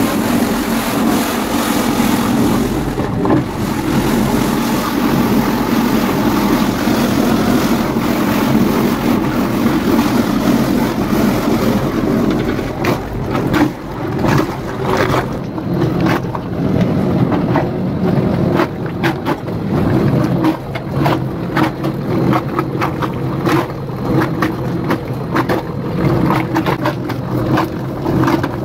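Motor-driven paint mixer running steadily, its vertical shaft churning distemper slurry in a round mixing tank with a low, even drone. From about halfway, irregular clicks and knocks sound over the drone.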